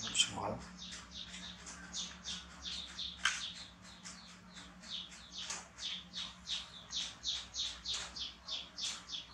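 A rapid series of high-pitched chirps, about three a second, each falling in pitch, over a faint steady low hum.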